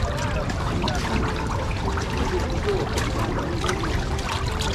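Water trickling and splashing steadily, with many small patters and a low rumble under it. Faint talk of people in the background.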